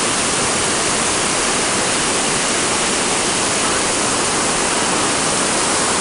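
Waterfall and creek water rushing over rocks: a loud, steady, even hiss.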